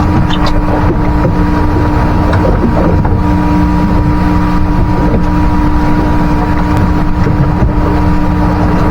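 Boat engine running steadily, a constant hum with a few steady tones under a dense rumble of wind buffeting the microphone.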